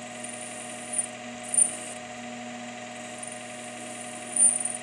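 Metal lathe running with a steady hum and gear whine as the tool cuts a small steel part, with a few short high-pitched squeaks from the cut, the loudest near the end.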